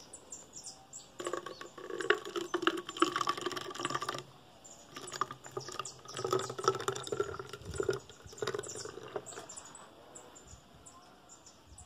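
Freshly squeezed orange juice poured from a pitcher into a 500 ml plastic bottle, gurgling as the bottle fills, in two spells: the first starting about a second in, the second starting about five seconds in.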